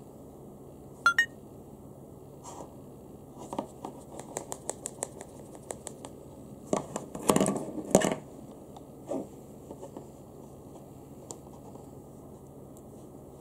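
Handling noise: light taps, a run of small clicks and soft scraping as a plush puppet is moved over a wooden table and a ballpoint pen is picked up. The loudest scraping and rustling comes about seven to eight seconds in.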